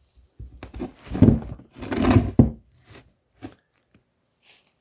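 A stone being handled and turned over on a hard surface: a few knocks and scrapes in the first half, then a couple of faint clicks.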